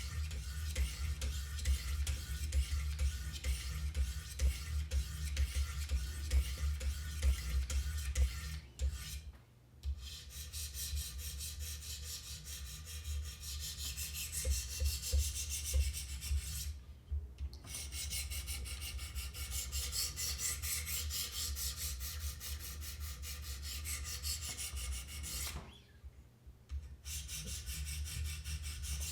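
Wicked Edge sharpening stones stroked along a CPM-M4 steel knife edge in a steady scraping rasp, in the coarse stage that sets the bevel and raises a burr. The strokes stop briefly three times, about 9, 17 and 26 seconds in.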